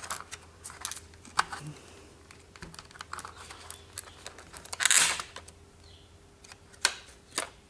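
Scattered light clicks and taps of a model locomotive being handled, with a short rustling scrape about five seconds in.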